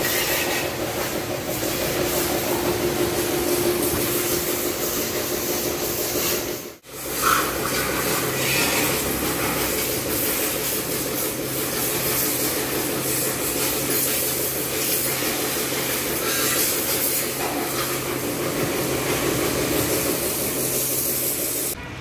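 Pressure washer spraying water onto a motorcycle: a steady hiss of the jet over the steady hum of the washer's pump motor, broken off briefly about seven seconds in.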